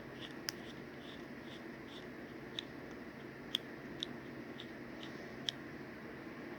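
A few faint, sharp clicks from a steel bicycle wrench being handled, about five over several seconds, over a steady low hum.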